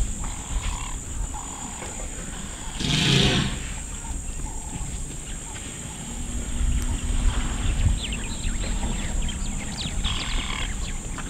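African elephant giving one short, loud bellow about three seconds in, amid a herd at a waterhole.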